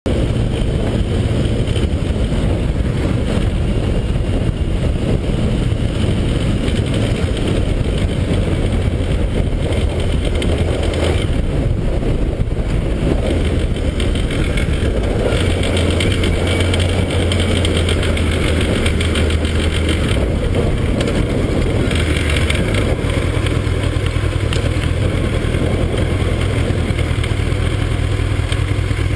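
Kawasaki ZX-12R inline-four engine running steadily with a knock from inside the engine, the sign of internal engine trouble.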